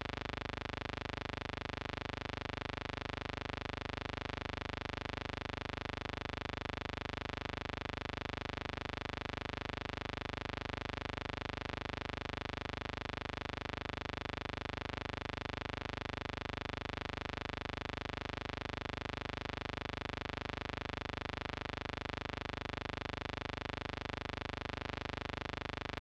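Steady, unchanging hiss with a faint hum: a noise-only soundtrack with no events in it.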